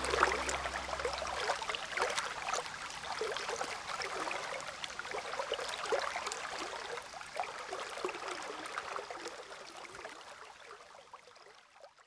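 Running water, trickling and splashing in many small drops and bubbles, fading out gradually over the last few seconds. The tail of soft background music ends about a second and a half in.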